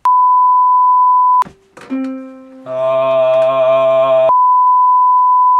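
A steady, high-pitched test-tone beep of the kind played over TV colour bars, cut in twice. Between the two beeps is a short held musical chord of about two seconds, which stops abruptly.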